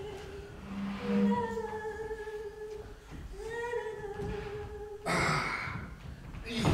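A voice humming a slow tune in long, held notes, with a short breathy burst about five seconds in.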